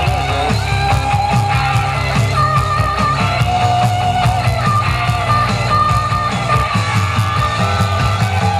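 Rock music with guitar playing loud from a cassette in the second tape deck of a Sharp WQ-T282 boombox, through its newly re-foamed original speakers; the deck is playing properly.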